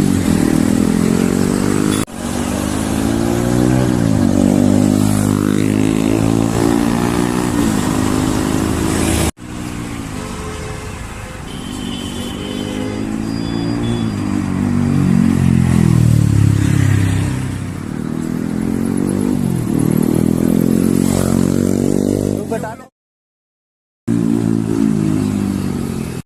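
Yamaha R15M's single-cylinder engine through an aftermarket SC exhaust, revved again and again, its pitch climbing and falling with each blip of the throttle. The sound breaks off abruptly a few times, with a second of silence near the end.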